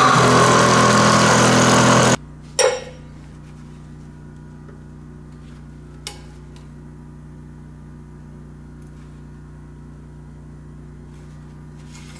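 Milling machine running an end mill through aluminum under flood coolant, a loud steady cutting sound that cuts off abruptly about two seconds in. After that a quiet steady low hum remains, with one sharp metallic clank shortly after the cut and a faint tick a few seconds later.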